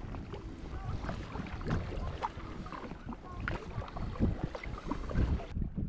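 Kayak paddle strokes: the blades dipping into the river, with water splashing and dripping in short irregular bursts over a low wind rumble on the microphone.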